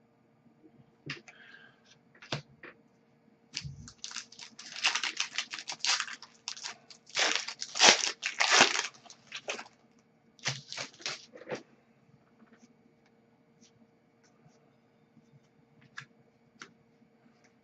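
Crinkling and tearing of a hockey card pack's foil wrapper being opened by hand, in bursts over several seconds, then a few faint clicks of card handling.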